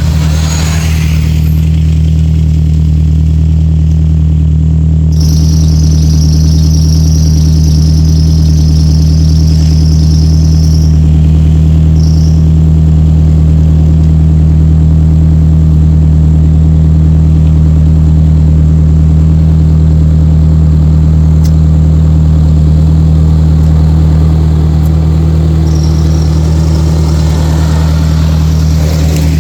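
Off-road 4x4 engine running with a loud, steady drone as the vehicle drives, with a high-pitched squeal lasting about six seconds from around five seconds in and returning briefly near the end.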